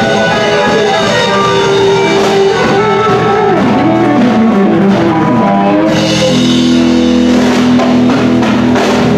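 Live rock band playing through a PA: electric guitars, bass guitar and drum kit. A guitar line bends up and down in pitch in the first half, and from about six seconds in the band settles into steadier held chords with brighter cymbals.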